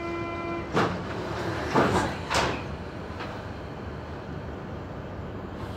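Door-closing warning buzzer on a Z20500 commuter train, followed by the sliding doors shutting with three knocks, the loudest about two seconds in. The carriage then settles into a steady low hum.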